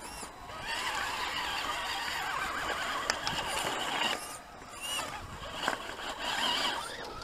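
Electric drivetrain of a 1/10-scale RC rock crawler whining as it crawls over rocks, the pitch wavering up and down with the throttle, easing off briefly a bit past halfway.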